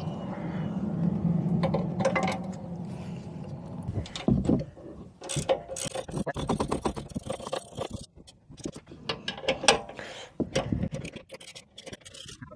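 Tools working on a truck's shock absorber mounting bolt. There is a steady low hum for the first four seconds, then a long run of quick metallic clicks and scrapes, like a ratchet being worked.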